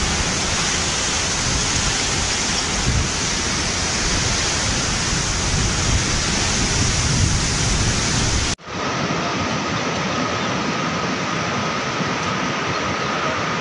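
Cyclone wind and heavy rain, wind buffeting the microphone in a steady rumbling rush of noise. About eight and a half seconds in, the sound cuts off abruptly and a different recording of wind and rain follows, with less rumble and a faint steady whistling tone.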